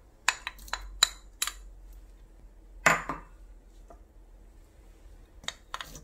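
Wooden spoon knocking against a small dish and a stainless steel mixing bowl as minced ginger and garlic are scraped in. There is a quick run of sharp taps in the first second and a half, one louder knock with a short ring about three seconds in, and a few more taps near the end.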